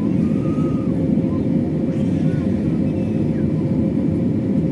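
Steady cabin noise inside an airliner descending on approach to land: engine and airflow rumble with a steady hum running through it.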